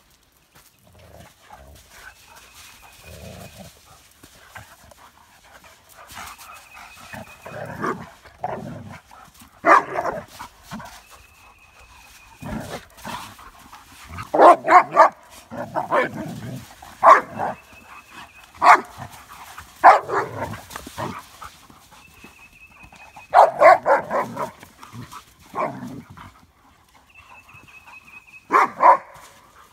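Dogo Argentinos and a Doberman at rough play, barking in short bursts. The barks come in loud clusters from about ten seconds in.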